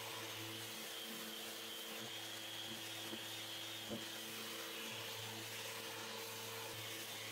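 Festool Rotex sander running steadily, sanding solid teak with 120-grit paper on a soft sponge pad. It is a constant motor hum with a faint high whine.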